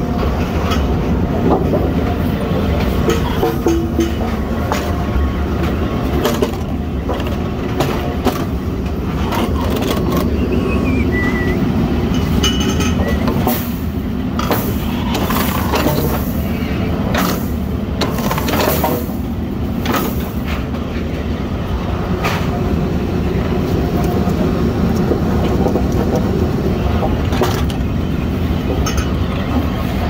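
Fence-post pointing machine running with a steady low rumble, with repeated knocks and clatter as round wooden posts are handled and fed into it and cut to a point.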